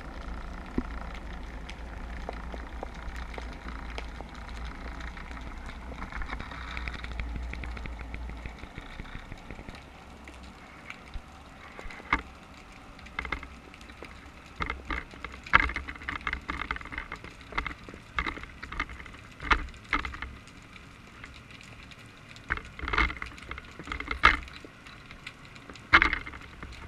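Underwater sound picked up by a camera in its waterproof housing, hung on a basket float fishing rig: a steady low water noise at first, then many sharp clicks and knocks at irregular intervals from about ten seconds in.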